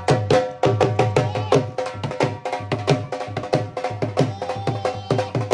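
Punjabi dhol, a double-headed barrel drum beaten with sticks, played in a fast, driving rhythm of deep bass strokes and sharp treble hits. A steady pitched tune sounds along with it.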